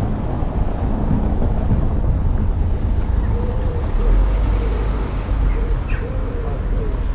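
Wind buffeting the microphone: a steady rumble that swells about halfway through. Faint, repeated bird calls come in over it in the second half.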